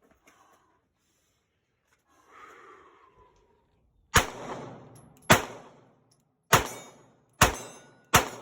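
Five gunshots fired at a steady pace, about one a second, starting about four seconds in, each loud crack followed by a short ringing echo.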